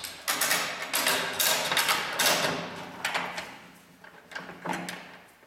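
A ratchet strap's ratchet buckle being worked by hand, giving a run of sharp metallic clacks that thin out near the end.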